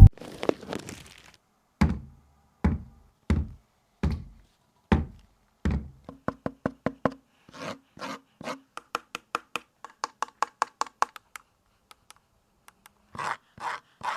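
A series of sharp knocks and taps from the speaker and its box being handled during unboxing. They come about one every 0.7 seconds at first, then faster and lighter, about three a second, with a short pause before a last few near the end.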